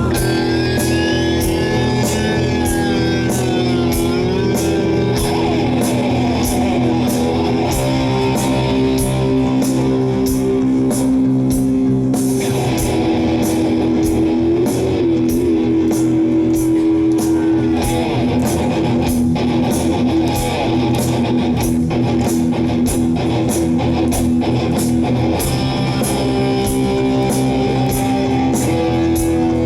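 Live rock band playing, electric guitar leading over bass and drums with a steady beat.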